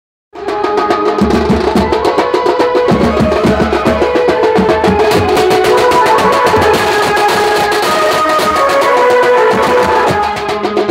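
Indian street brass band playing live and loud: brass horns carry a melody over a steady beat of snare-type drums and bass drum. The music cuts in abruptly just after the start.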